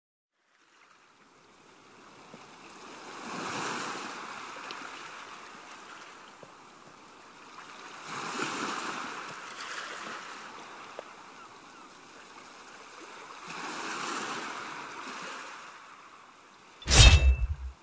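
Ocean surf washing in three slow swells about five seconds apart, then a sudden loud thump near the end.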